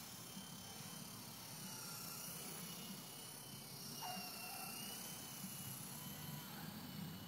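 Radio-controlled model helicopter in flight, its motor and rotor giving a faint whine that wavers up and down in pitch.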